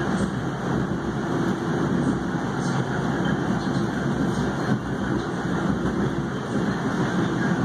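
MBTA Red Line 1900-series subway car heard from inside while running through a tunnel: a steady rumble of wheels and running gear, with a faint on-and-off hum.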